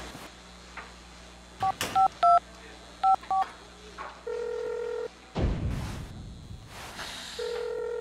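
A telephone keypad dialing: a handful of short two-tone beeps in two quick groups. Then the ringing tone down the line, two long steady tones about three seconds apart, with a couple of thumps and rustles between them.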